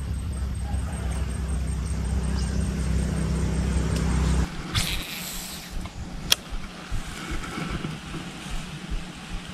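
A steady low engine-like hum that cuts off suddenly about four and a half seconds in. It gives way to quieter open-air background with a brief swish and one sharp click about two seconds later.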